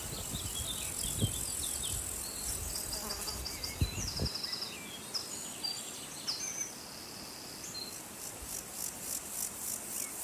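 Crickets in a summer meadow chirping steadily in a high, fast-pulsing chorus, with short bird chirps and trills over them. A low rumble underneath stops about four seconds in.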